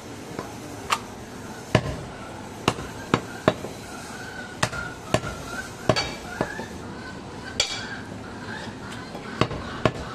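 Heavy cleaver chopping goat meat on a round wooden chopping block: a dozen or so sharp knocks at an uneven pace, some in quick pairs.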